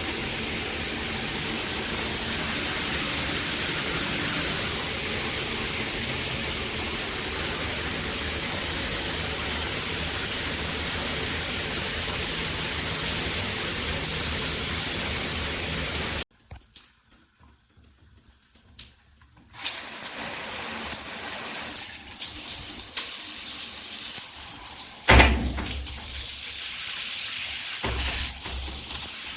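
Water spraying steadily from a shower head, cutting off abruptly about 16 seconds in. After a few seconds of near silence, a quieter, uneven spray returns with several knocks and one loud knock.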